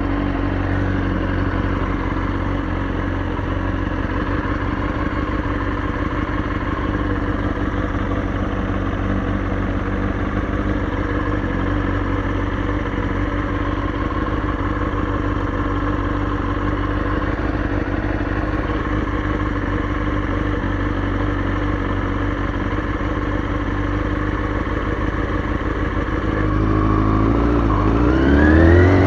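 Kawasaki Ninja ZX-6R 636 inline-four engine idling steadily, then revs rising near the end as the bike pulls away.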